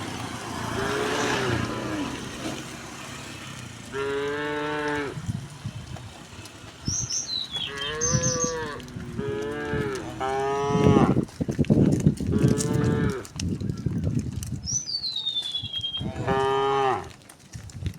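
Cows mooing one after another, about seven calls of different pitch from several animals, each lasting about a second, with a couple of them close together near the middle.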